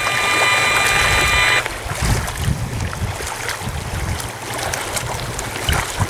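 A radio frequency meter's speaker gives a steady electronic tone made of several high pitches, the audible signal of nearby cell-tower transmissions, and it cuts off suddenly about a second and a half in. After that, wind buffets the microphone with an uneven low rumble.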